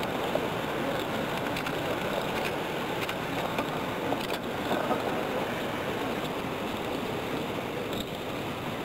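Steady noisy ambience from the soundtrack of 1963 archive broadcast footage, with no voices or music standing out and a few faint clicks scattered through it.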